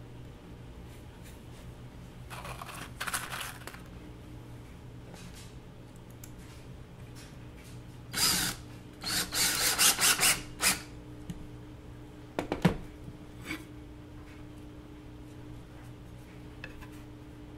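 Cordless drill driving screws through a metal bracket into a wooden post, in short stop-start bursts about eight to eleven seconds in, with a softer run a few seconds earlier. A couple of sharp knocks follow a little later.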